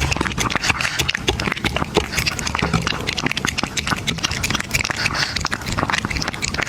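A pet eating close up: rapid crunching and chewing clicks.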